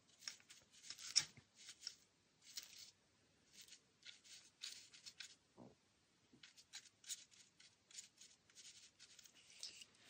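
Faint scraping of a metal palette knife stirring black paint and gel medium in a clear bowl, a string of short irregular strokes.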